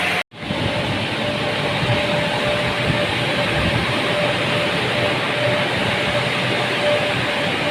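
Steady, loud machine running noise with a faint thin whistle-like tone, cut off abruptly for a split second just after the start and then resuming.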